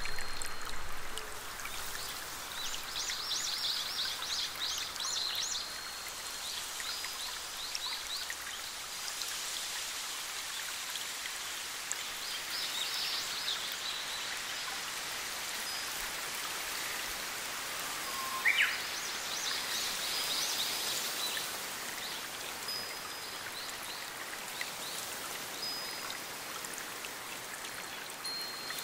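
Steady hiss of a small forest stream running over rocks. Over it a bird sings four bursts of rapid high chirping trills, with short thin whistled notes between them and one sharp call about two-thirds of the way through.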